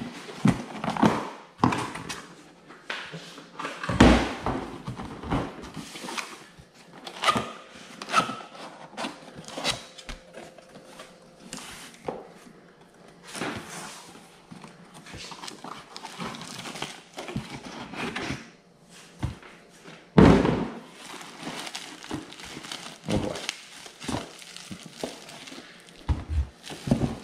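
Cardboard box and packaging being handled: irregular knocks and thunks of cardboard, with two heavier thumps about four seconds and twenty seconds in, and rustling of wrapping as a speaker is drawn out of its cloth bag.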